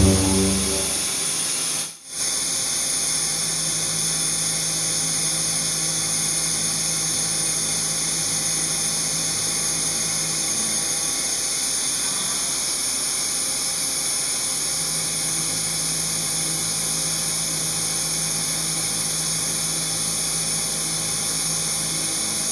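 20 mm three-insert indexable shoulder end mill (WIDIA Victory Shoulder Mill 11) milling 4140 (42CrMo4) alloy steel at about 3,200 rpm. It makes a steady high-pitched cutting hiss over a steady low tone that matches its tooth-passing rate. About two seconds in the sound breaks briefly and switches from the lower, heavier hum of the larger four-insert cutter.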